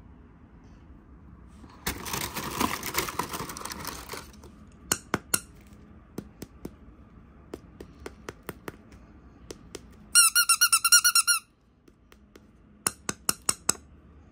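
Packaging rustling for about two seconds, then scattered small clicks and taps of handling. A quick run of about ten high-pitched squeaks lasts just over a second and is the loudest sound here, followed by a few more clicks near the end.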